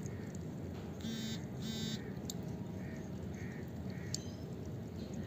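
Water dripping from an outdoor pipe onto wet concrete, under a steady low hiss, as a cat licks at the drips. About a second in, two short, harsh, buzzy calls come one right after the other.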